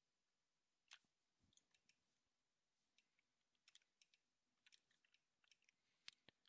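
Near silence broken by faint, irregular clicks of a computer mouse, more of them in the second half.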